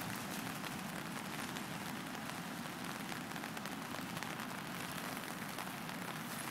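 Steady rain falling, an even hiss of drops with no break.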